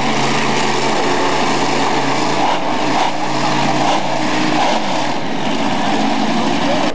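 Monster truck engines running and revving, a loud continuous engine drone whose pitch rises and falls; the deepest steady tone drops away about five seconds in.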